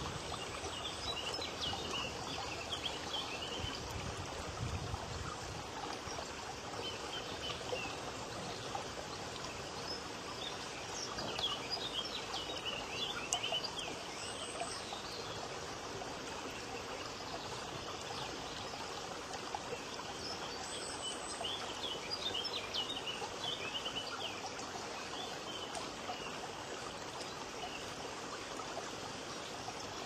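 Steady rushing of running water, with short bursts of bird chirping three times, about ten seconds apart.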